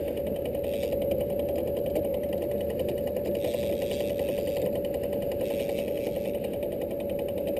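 Boat's outboard motor running steadily at low speed: a constant hum with a fixed whine on top.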